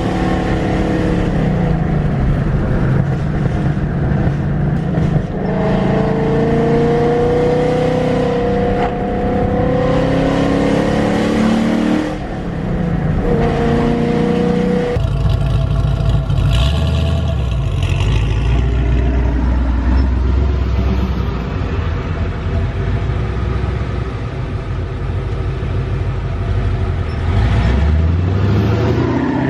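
Ford Mustang GT V8 with long-tube headers, an off-road X-pipe and Corsa Extreme exhaust, accelerating hard with the revs climbing in long pulls and dropping at gear changes about five and twelve seconds in. About halfway through it settles into a steady deep drone, and the revs climb again near the end.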